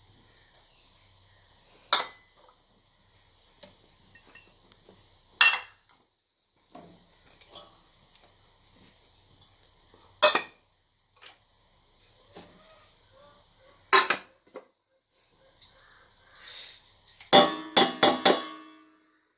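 Metal kitchen utensils and a metal vessel clinking as spice ingredients are handled: four sharp single clinks a few seconds apart, then a quick run of ringing clatters near the end.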